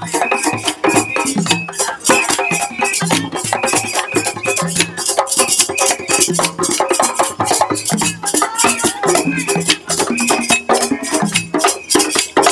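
Traditional Gambian dance song: a group of women singing over hand drums and the rapid clacking of hand-held wooden clappers.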